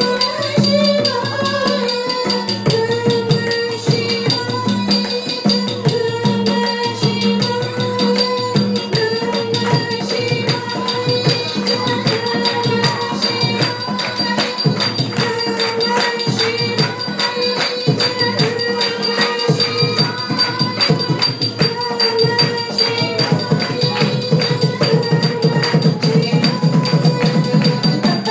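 Indian classical dance music: fast, dense drum strokes with jingling bells over a steady held drone, growing louder and busier near the end.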